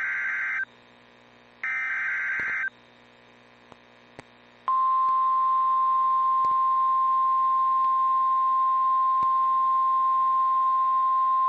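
NOAA Weather Radio emergency alert signalling: two harsh, buzzing bursts of SAME header data, each about a second long and a second apart. About five seconds in, the steady single-pitch 1050 Hz weather-radio warning alarm tone starts and holds without a break. This tone signals that a warning message is about to follow.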